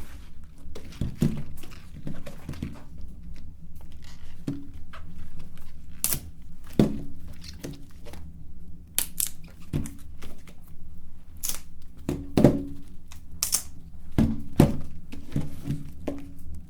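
Electric meat grinder running with a steady low hum, with irregular knocks, clicks and crackles over it.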